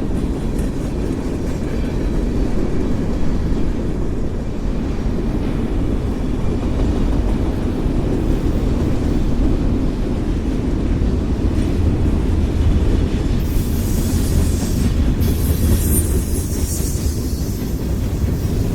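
Freight train cars rolling past with a steady low rumble of wheels on rail. A high-pitched wheel noise comes in about three-quarters of the way through, breaks off briefly, and returns for a few seconds.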